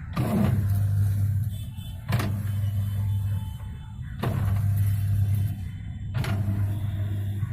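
Whirlpool White Magic 650H top-loading washing machine agitating: a steady motor hum with a sharp clunk about every two seconds. The knocking ('kat kat kat') is the sign of a faulty gearbox.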